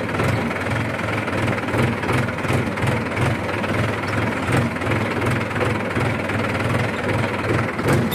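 Mahindra tractor's diesel engine running steadily as the tractor drives across a field, heard close from the driver's seat, with a regular low throb about three times a second.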